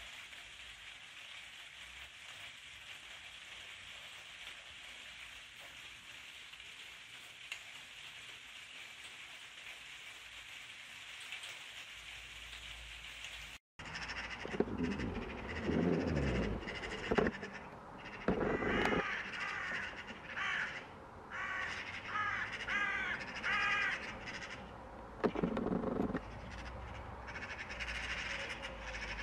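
Steady patter of rain for the first half. Then, after a sudden cut, magpies and other corvids squabble with loud, harsh calls and rapid rattling chatter.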